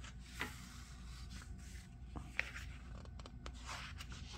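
Comic book pages being turned by hand: soft rustling and sliding of paper, with a few short crisp flicks.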